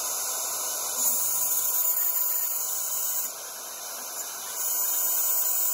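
X-Carve desktop CNC router spindle running at high speed while a 1/8-inch end mill cuts through 2 mm aluminium sheet: a steady high whine with cutting hiss. It gets louder about a second in, drops back for about a second near the middle, then rises again.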